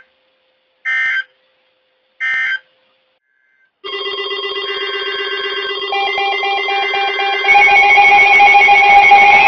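Weather-radio SAME end-of-message data tones: short screeching bursts about a second apart, two of them heard here. About four seconds in, a layered electronic alarm of several steady tones with some rapid beeping starts abruptly and grows louder near the end.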